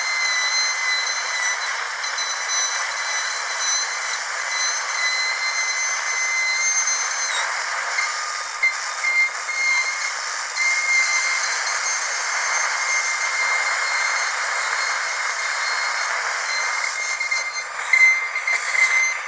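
Dentist's drill running with a steady high-pitched whine over a hiss, wavering for a moment near the end.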